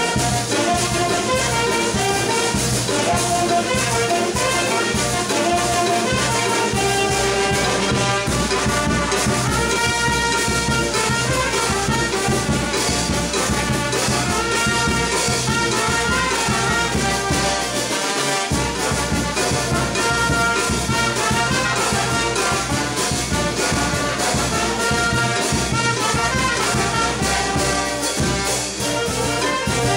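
Brass band playing live: saxophones, trumpets, trombones and tuba over a steady beat from bass drum and hand cymbals.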